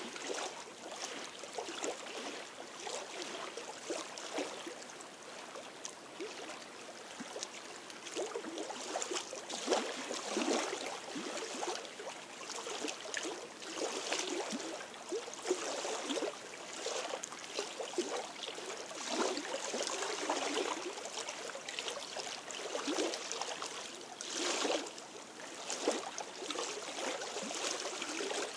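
Small lake waves lapping and splashing irregularly against shoreline rocks.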